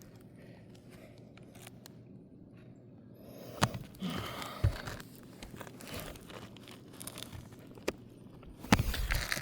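Asphalt roof shingles being handled: rustling and scraping with a few sharp clicks, sparse at first and loudest in a short burst near the end.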